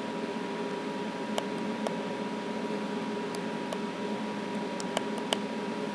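Steady indoor background hum with a fixed tone, broken by about six short clicks, the sharpest two coming close together about five seconds in.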